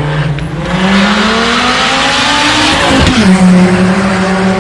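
Rally car engine pulling hard, revs rising steadily under heavy tyre noise as the car slides. About three seconds in the revs drop sharply, then hold steady.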